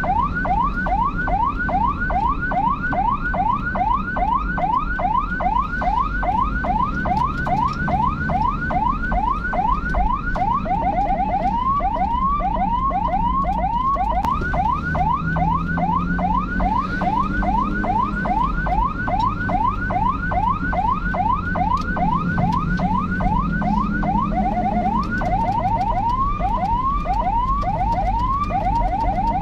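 Electronic emergency-vehicle siren in a fast yelp, about four rising sweeps a second, switching twice to a slower sweeping pattern. A low engine and road rumble runs underneath.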